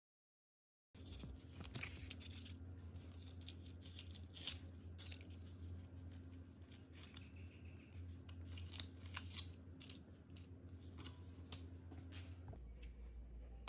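Paper cupcake liners rustling and crinkling as they are handled and pressed into plastic cups, with many small irregular clicks and taps, faint over a low steady hum. The sound starts about a second in.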